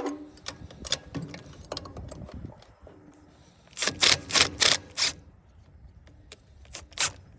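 Scattered clicks and taps of small parts and wiring being handled, with a cluster of four loud rasping clatters about four seconds in and a sharp click near the end.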